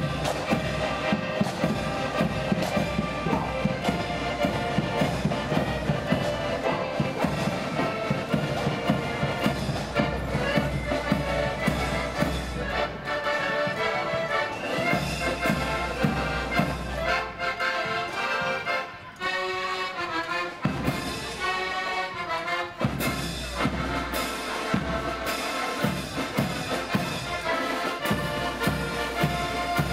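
Marching accordion band playing a tune on piano accordions, with bass drum and side drums beating a steady march time. In the middle the drums drop out for about ten seconds and the accordions play on alone, then the drums come back in.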